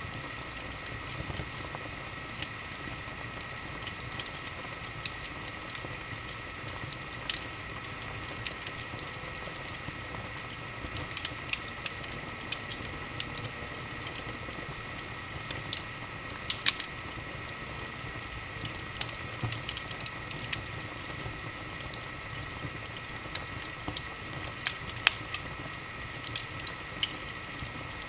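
Wood fire in a large open fireplace crackling: a steady hiss with frequent irregular sharp pops and snaps, and a faint steady high tone underneath.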